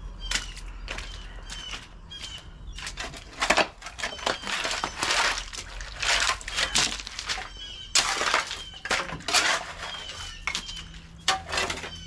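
Irregular rustling and knocking of hands-on clearing work, with short bird chirps repeating every second or so.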